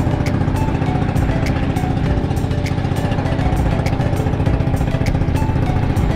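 An engine running steadily at a constant speed, with a faint regular click about twice a second over it.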